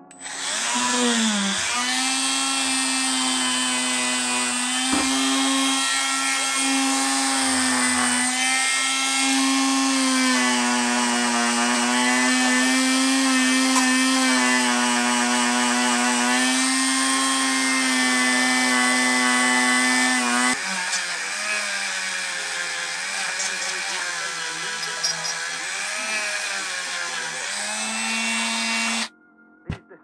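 Dremel rotary tool spinning a polishing wheel against small metal parts: a steady high whine that wavers in pitch as the wheel is worked on the part. About twenty seconds in it drops lower and a little quieter, and it cuts off suddenly shortly before the end.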